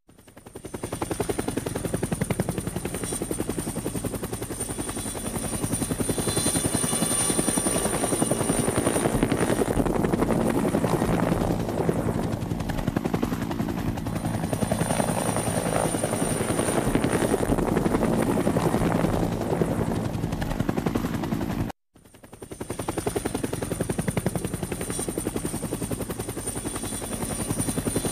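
Helicopter rotor chopping in rapid, even beats, with a thin high turbine whine over it. The sound fades in at the start, cuts out for a moment about 22 seconds in, then fades back in.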